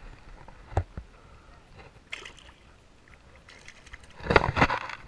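A bass released by hand splashes into the water beside the canoe: a short burst of splashing about four seconds in. A single knock sounds just under a second in.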